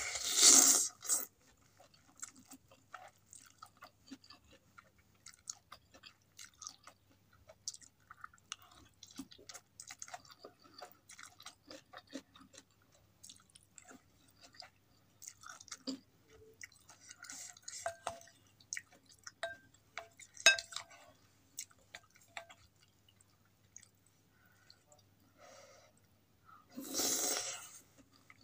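Close-miked mouth sounds of a person eating soupy instant noodles with vegetables: a loud slurp of noodles at the start, then soft wet chewing clicks, and another long slurp near the end.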